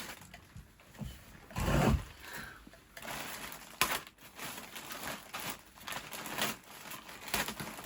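Rustling and knocking as packages and their contents are handled, with a louder thump about two seconds in.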